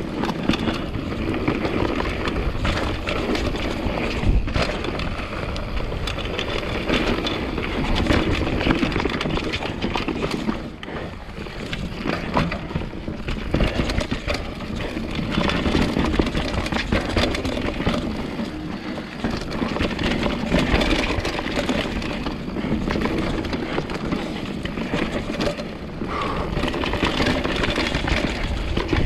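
Full-suspension mountain bike riding fast down a rough dirt forest trail: steady tyre noise on dirt with continual rattling and knocking from the bike over roots and bumps.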